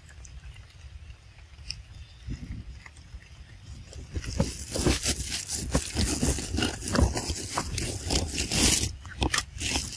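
Quiet outdoor background, then from about four seconds in, loud irregular scraping, rustling and clicking right at the microphone as the camera is brought in close among the monkeys and bumped and brushed.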